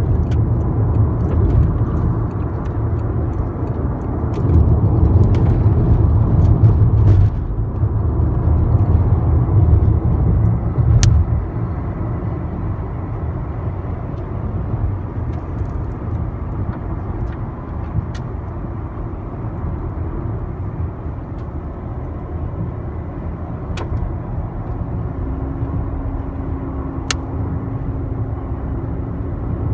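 Road noise heard inside a moving car's cabin at highway speed: a steady low rumble of tyres and engine, louder for the first ten seconds or so. A few faint sharp clicks are scattered through it.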